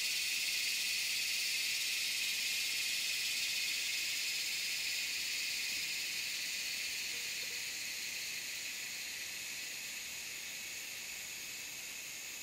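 Steady, high-pitched chorus of tropical forest insects, a dense shrill hum that slowly grows a little fainter.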